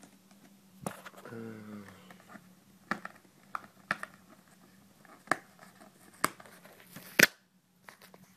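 A cardboard graphics-card box being handled and opened: a string of sharp clicks and taps, the loudest about seven seconds in.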